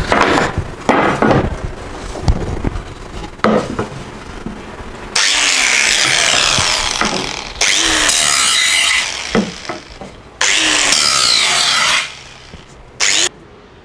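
Handheld angle grinder run against the edge of a wooden board, in three passes of a couple of seconds each that start and stop abruptly, with a short blip near the end. Before the grinding, knocks and clatter of the board being handled on the bench.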